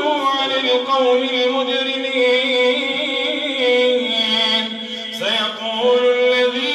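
A man's melodic Quran recitation in prayer, chanted on long held notes: one drawn-out note for about five seconds, a short rising break, then another held note.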